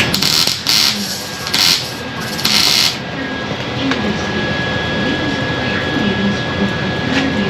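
Wire-feed welder arcing on sheet steel in four short bursts over the first three seconds, the start-and-stop pattern of tack and stitch welds bridging a gap on a rocker panel; after that only a steady shop hum.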